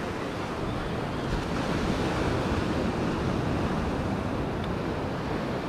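Ocean surf breaking and washing up the beach in a steady rush, swelling slightly for a second or so midway.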